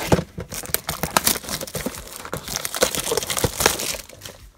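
Plastic shrink wrap crinkling and tearing as it is pulled off a cardboard trading-card box: a dense run of crackles and small clicks, fading near the end.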